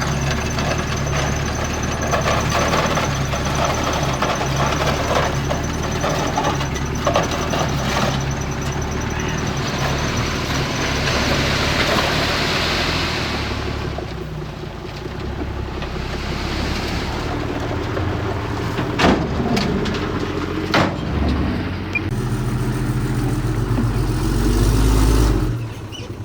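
Diesel engine of heavy earthmoving machinery running steadily, with two sharp knocks about two-thirds of the way through and a louder low rumble near the end.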